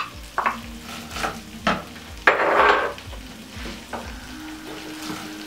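Chicken gizzards and sliced red onions sizzling in hot oil in an enamel pan while a wooden spoon stirs and scrapes them, in a series of short strokes with a louder burst of sizzling and scraping a little over two seconds in.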